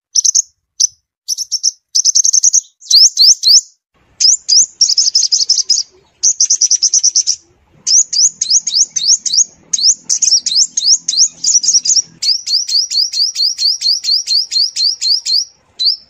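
Sunbird song, a lure recording for speaker trapping: short phrases of high, sharp chirps and quick rising notes broken by brief pauses. From about twelve seconds in it runs into a long, even string of rapid rising notes, about six a second.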